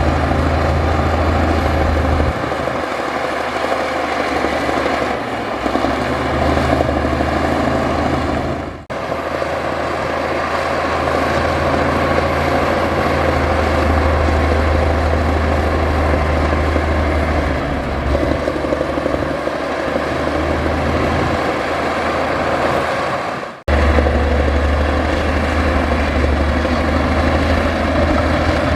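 Heavy diesel engine of earthmoving machinery running under load, its low note shifting as it works, with two brief drops in level about 9 and 24 seconds in.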